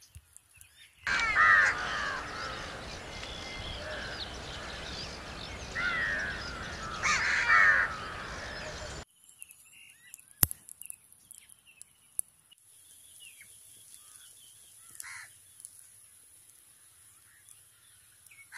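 Crows cawing several times, harsh and repeated, over a steady rush of outdoor noise that cuts off abruptly about nine seconds in. After that, faint bird chirps and a few sharp cracks from the wood fire.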